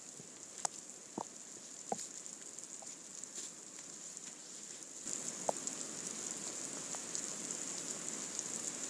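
Steady hiss of light rain, with a few sharp ticks in the first two seconds and another about halfway through; the hiss grows a little louder about five seconds in.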